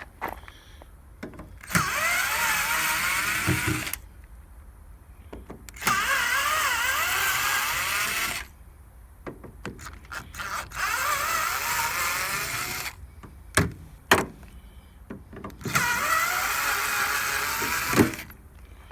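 Cordless power driver run four times in bursts of about two seconds, its motor whine sweeping up in pitch in each run, with a few sharp metal clanks in the gaps between.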